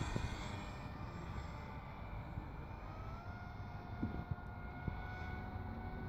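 Radio-controlled model Avro Vulcan flying overhead, its motor a steady whine that rises slightly in pitch about three seconds in.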